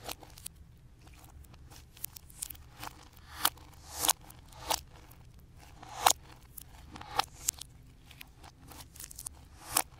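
Slime squeezed and kneaded under the fingers, then stretched apart: a run of sticky crackles and clicks with sharper pops of trapped air. The loudest pops come about four, six and ten seconds in.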